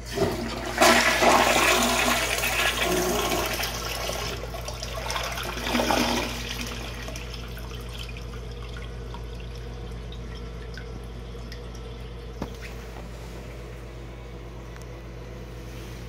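TOTO CS680BP toilet flushing: a loud rush of water into the bowl for about three seconds, a second surge about six seconds in, then quieter running water as the bowl refills.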